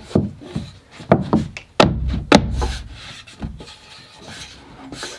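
Wooden cabinet pieces being handled and fitted: a run of sharp knocks, about five in the first two and a half seconds, with wood rubbing and scraping between them and quieter rubbing after.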